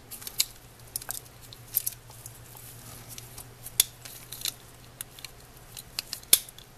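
Small plastic parts of a model locomotive's speaker housing clicking and rubbing as gloved fingers slide them together. There are scattered sharp clicks, the loudest about four seconds in and near the end.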